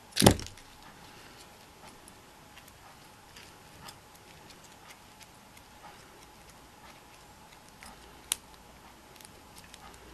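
A sharp knock just after the start as a pair of pliers is set down on a wooden table, then faint scattered ticks and clicks of small metal key rings being handled, with one sharper click about eight seconds in.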